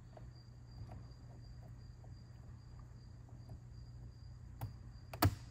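Faint light clicks and taps of small metal carburettor parts handled by hand as a pin is fitted into an SU H1 carburettor, with two sharper clicks near the end. A thin steady high-pitched tone runs underneath.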